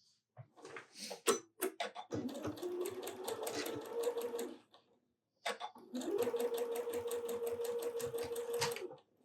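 Domestic sewing machine stitching in two runs, the first about two and a half seconds long and the second about three and a half seconds, with a short stop between. It opens with a few handling clicks, and the motor hum rises to speed at the start of the second run, as a seam joins a quilt's appliqué pieces.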